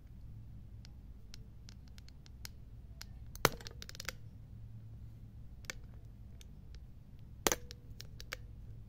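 Handling noise from a handheld recording device: scattered light clicks and ticks, with two sharper clicks about three and a half and seven and a half seconds in, over a low steady hum.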